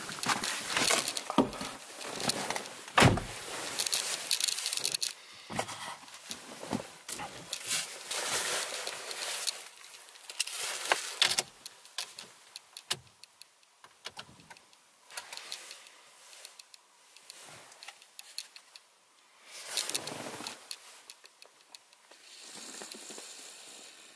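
Irregular rustling, clicks and knocks of someone moving about inside a car cabin and handling a camera and its dashboard mount, with the engine not running. The sounds are busiest in the first half and grow sparser later.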